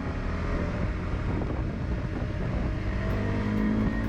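Wind rumble on the microphone over a KTM 390 Adventure's single-cylinder engine running, its note rising slightly near the end.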